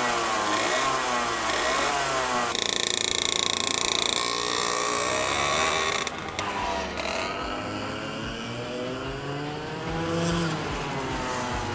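Two-stroke racing kart engine running and being revved, its pitch rising and falling. About six seconds in the sound cuts to a duller kart engine heard from farther off, still rising and falling in pitch as it is driven round.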